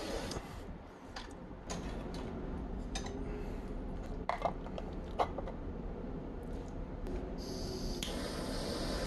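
A butane torch's flame hiss stops within the first second, then a steel ruler clinks and taps against the acrylic box and metal bench top several times, the sharpest knock about five seconds in. A steady hiss comes back near the end.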